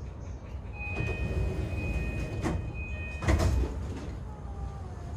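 JR E233-8000 series commuter train running, heard from inside the car: low wheel-and-rail rumble with the steady high whine of its Mitsubishi IGBT-VVVF inverter drive from about a second in to about three seconds in. Two sharp knocks come about two and a half and three and a quarter seconds in, the second the loudest.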